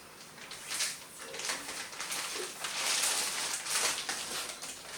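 Packaging rustling and crinkling as it is handled and opened, in several irregular bursts that are thickest past the middle.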